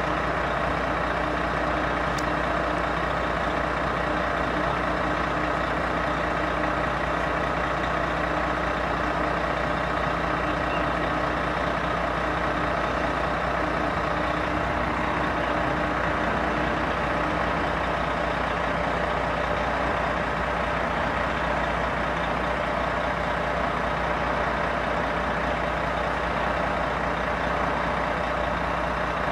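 Steady mechanical drone with several held hum tones, like an idling heavy engine. One of the lower tones fades out a little past halfway.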